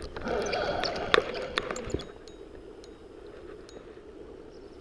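Clicks and light rattles of a Shimano Exage spinning reel being handled close to the microphone, mostly in the first two seconds, over the steady rush of the river.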